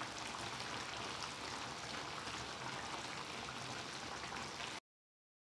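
Pork humba simmering in a pan, the sauce bubbling with a steady, fine crackling sizzle that cuts off abruptly near the end.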